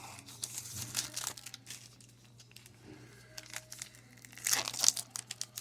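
Crinkling and tearing of a trading-card pack's plastic wrapper being opened by hand, in two bouts of crackling, the louder one near the end.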